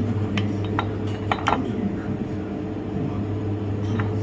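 Light metallic clinks of stainless parts being handled, several in the first second and a half, over a steady low electrical hum.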